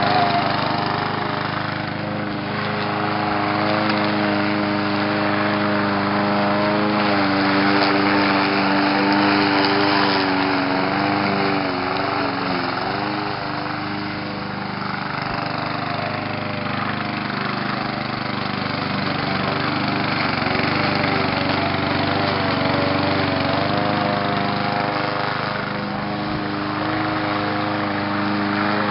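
Walk-behind gasoline lawn mower running steadily while mowing, its engine note dipping briefly about twelve seconds in before recovering.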